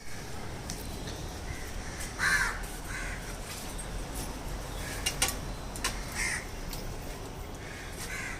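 Crows cawing: a string of short, hoarse caws at irregular intervals, the loudest about two seconds in, with a couple of sharp clicks about five seconds in.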